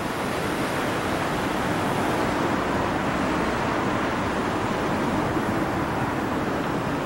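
City street traffic: cars driving along a wide avenue, their tyres and engines blending into a steady, even rush of noise.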